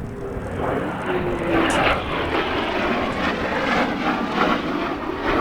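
Engine noise of a fixed-wing aircraft flying a display, a loud steady rush with a faint tone gliding in pitch.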